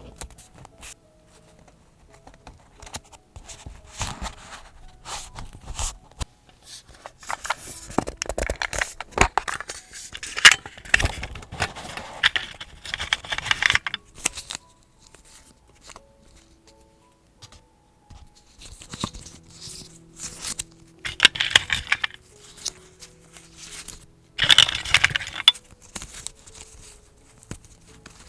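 Paper being handled for journaling: bursts of scraping and tearing, loudest in a long stretch in the middle and two shorter bursts near the end, over faint background music.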